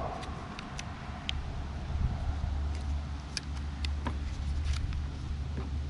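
Several sharp snips of scissors cutting butyl tape and its protective paper, spread out over the few seconds, over a steady low rumble.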